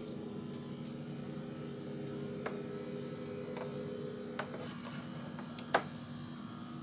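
Steady low hum with several light clicks and knocks, the sharpest a click near the end; the upper tones of the hum drop out about two-thirds through.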